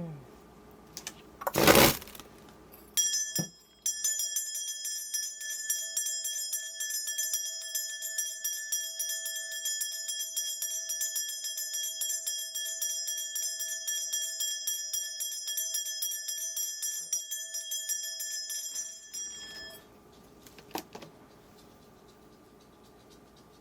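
A Korean shaman's bundle of ritual bells shaken rapidly and without a break for about sixteen seconds, a dense jingle over a few steady ringing tones, before it stops. A short loud burst of noise comes about two seconds in, before the jingling starts.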